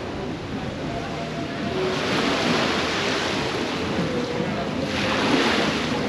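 Ocean surf: waves breaking and washing up the beach, swelling about two seconds in and again near the end.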